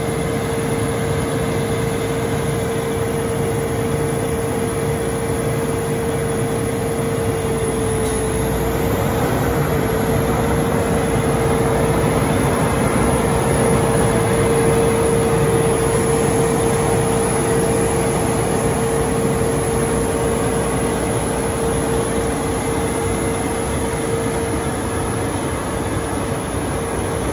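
John Deere S690 combine running steadily, a heavy engine and machinery noise with a constant mid-pitched whine through it, working properly.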